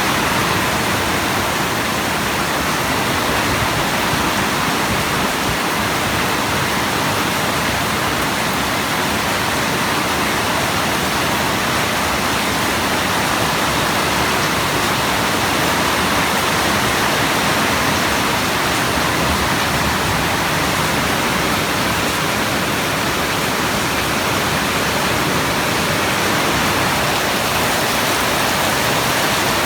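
Steady, heavy rainfall: a dense, even hiss of rain with no breaks.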